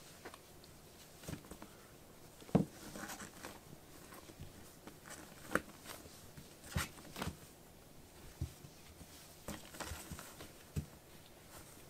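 Two kittens play-fighting, scuffling and tumbling on a floor mat: irregular soft thumps of paws and bodies with brief rustles, the sharpest thump about two and a half seconds in.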